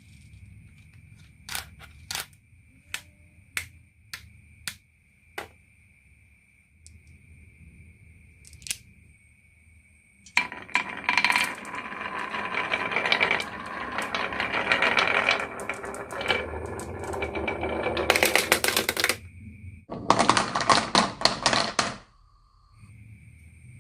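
Marbles on a marble run: a few separate clicks at first, then many marbles clattering and rattling down the track together for several seconds, with a last loud burst of clatter near the end.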